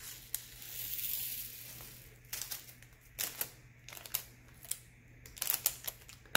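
Round diamond-painting drills poured from a small plastic bag into a little plastic storage container, a soft hissing trickle for about two seconds, then a string of sharp plastic clicks and taps as the containers and their snap lids are handled and set down.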